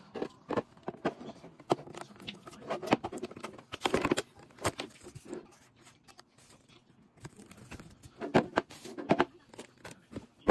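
Hard clear plastic storage trays and plastic-wrapped goods handled on a tabletop: scattered sharp taps and clicks of plastic, with rustling of wrapping film and paper cards, going quiet for a moment past the middle.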